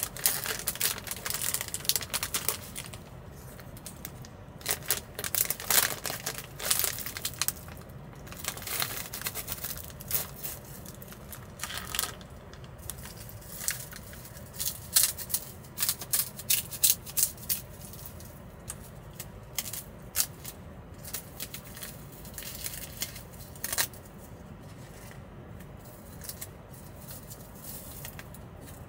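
Irregular bursts of rustling, crinkling and small clicks and taps from things being handled at close range. It goes quieter about four seconds before the end.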